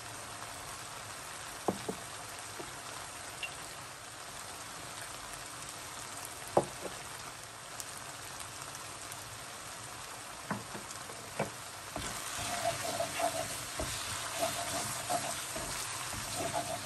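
Thick tomato curry masala sizzling steadily in a non-stick wok, with a few sharp short knocks against the pan. From about twelve seconds in, a wooden spoon stirs the masala and the sizzle and scraping grow louder and busier.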